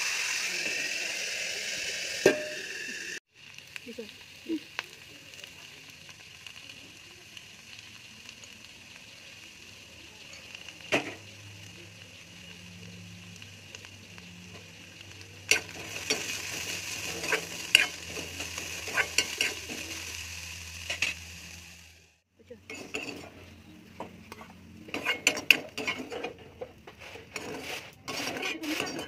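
Potato sticks frying in oil in an aluminium kadai: a steady sizzle, louder at the start and again from about halfway, with a metal ladle scraping and clinking against the pan as they are stirred. Near the end, rapid clinks of the ladle in the pan over a fainter sizzle of spices frying.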